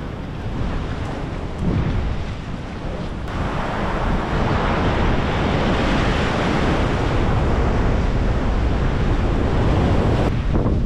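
Wind noise on the microphone throughout. About three seconds in, the steady hissing wash of ocean surf breaking white around pier pilings comes in suddenly, and it cuts off just before the end.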